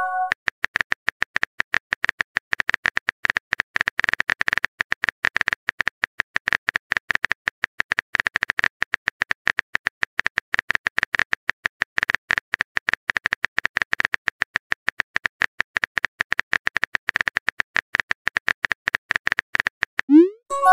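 Rapid run of soft keyboard-typing clicks from a texting app's typing sound effect, many taps a second, as a long message is composed. It ends in a short rising swoosh as the message is sent.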